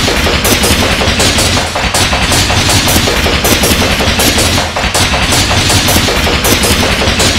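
Loud, harsh, heavily distorted audio chopped into a rapid stutter that sounds like gunfire: a cartoon theme's sound, looped and layered in an edit, with no clear tune left.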